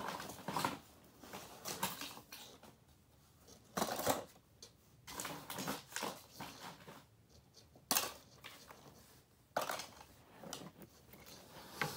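Broken pieces of a smashed cassette player clattering and knocking together as they are picked up and moved around in a cardboard box, in irregular bursts, loudest about four and eight seconds in.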